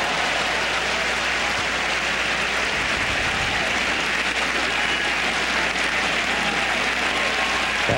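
A large stadium crowd applauding steadily after a point is won, a dense, even clapping that holds at one level throughout.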